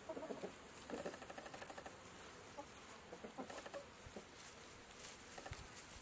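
Chickens clucking faintly: a few short clucks near the start, about a second in, and again a little past the middle, over a low background hiss.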